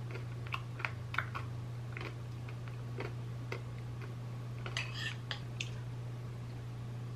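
Small scattered clicks of a metal spoon against a bowl while ice cream is scooped and eaten, with a denser cluster about five seconds in. A steady low hum runs underneath.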